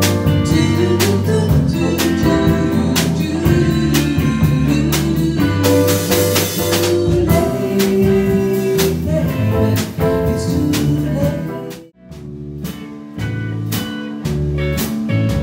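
Small live band playing a bluesy song: drum kit, electric guitar and keyboard under singing. The music breaks off briefly about three quarters of the way through, then the band comes back in.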